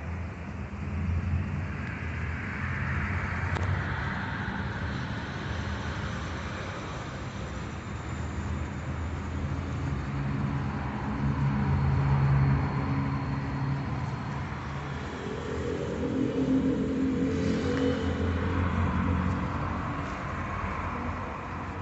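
Road traffic noise: vehicle engines running and passing, a continuous low rumble that rises and shifts in pitch around the middle and again in the last third.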